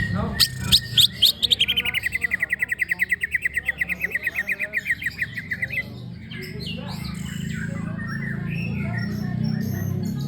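Cucak ijo (green leafbird) singing: a few loud sweeping notes, then a fast trill of about ten notes a second that slides gradually down in pitch and stops abruptly about six seconds in, followed by softer, varied chirps.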